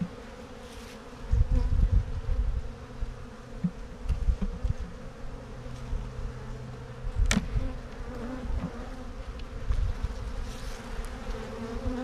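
Honeybees humming steadily around an open brood box, with irregular low rumbles and a single sharp knock about seven seconds in as the hive tool works the wooden frames.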